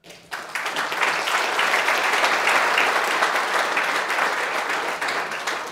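Audience applauding at the end of a talk: many hands clapping together, building quickly in the first second and tapering off near the end.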